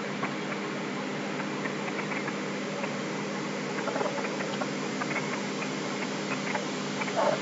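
Light, irregular clicking of a computer keyboard and mouse over a steady background hiss and hum.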